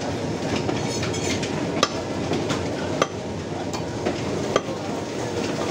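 A butcher's knife cutting beef on a wooden log chopping block, with a few sharp, irregular knocks as the blade strikes the wood, over steady background noise.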